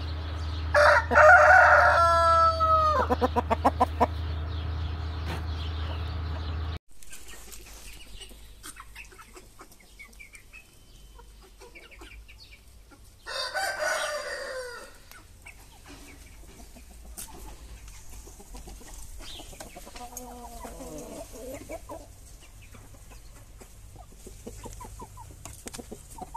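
Aseel roosters crowing. A loud crow about a second in ends in a quick run of short notes. After a sudden cut, a fainter crow comes a little past the middle, then softer short clucking calls near the end.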